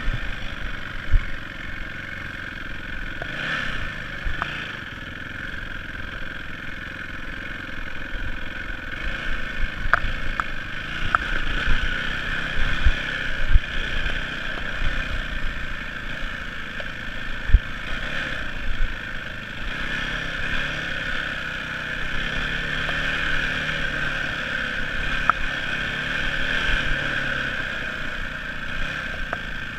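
Yamaha dirt bike engine running while riding a rough trail, its pitch and loudness rising and falling with the throttle. Sharp knocks and clatter come from the bike hitting bumps and rocks, the loudest at about 13 and 17 seconds in.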